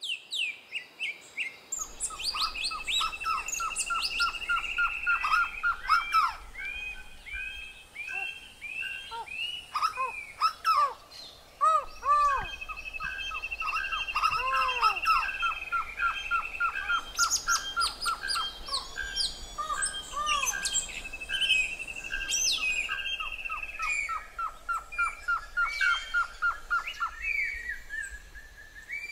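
Several birds singing and calling together. Fast runs of short repeated notes and long trills lasting a few seconds are mixed with falling, arching whistles.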